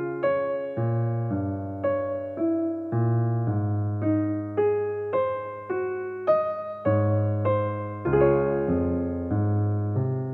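Background music: a gentle electric piano playing a slow melody of single struck notes over sustained bass notes, each note fading away.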